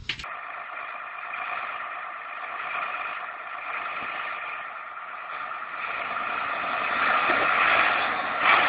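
Diesel tractor engines running under heavy load as a chain of tractors tows a truck along a muddy track. The steady engine hum grows louder near the end.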